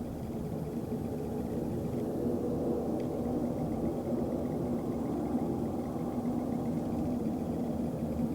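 A low droning hum from the sky with several steady tones, swelling over the first couple of seconds and then holding. This is one of the unexplained 'strange sky sounds', at about its loudest here; in the room they were strong enough to make the house vibrate.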